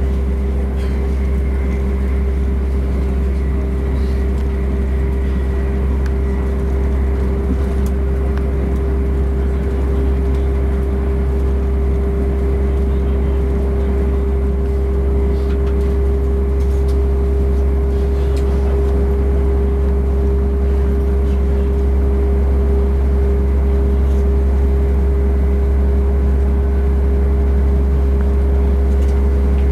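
Steady low drone of a moving train heard from inside the carriage, with a steady humming tone above it.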